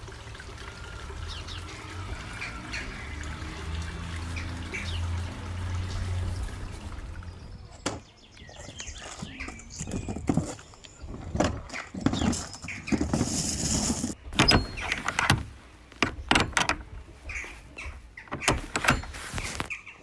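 Steady rush of running water with a low hum under it and birds chirping. About eight seconds in it gives way to a run of irregular knocks and rustling.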